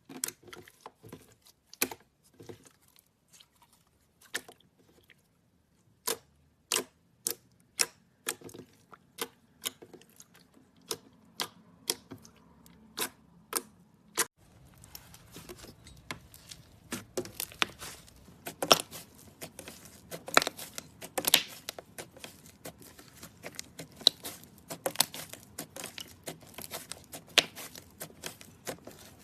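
Slime being squeezed and poked by hand, giving sharp separate pops and clicks. About halfway through these turn into a denser run of crackling pops.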